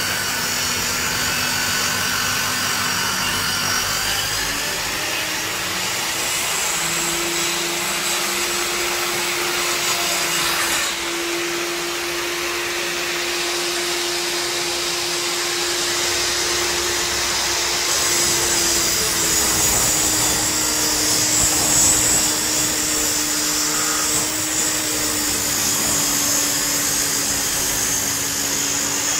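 Benchtop table saw running steadily while ripping wooden boards along the fence. Its motor tone steps up in pitch a few seconds in and settles a little lower past halfway.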